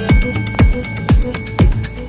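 Electronic background music with a steady kick drum at about two beats a second, hi-hat ticks and held synth notes.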